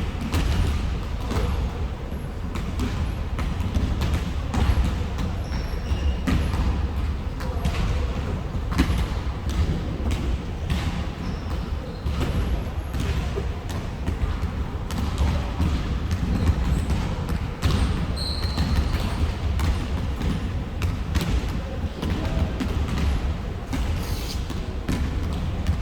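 Basketballs bouncing on a gym floor: irregular thumps from several balls at once, over a steady low rumble of the hall.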